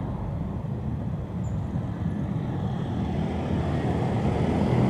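Steady rumble of road traffic: cars, motorbikes and a city bus running around a roundabout. It grows slightly louder near the end.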